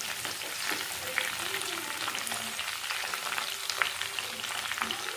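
Sticks of taro (arbi) sizzling in hot oil in a kadhai as a wooden spatula stirs them, with scattered scrapes and taps of the spatula against the pan over a steady frying hiss.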